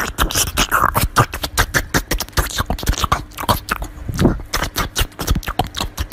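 Small dog chewing and crunching a slice of watermelon up close: quick, irregular wet crunches and mouth clicks, several a second.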